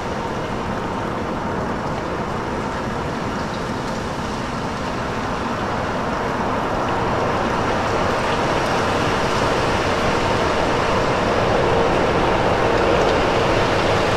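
Omnisphere 2 rain-texture patch 'Disturbing Storm', layering light-rain and distant-thunder field recordings with a synth noise layer. It gives a dense, steady rain-like hiss and rumble that grows gradually louder and fuller in the middle over the second half.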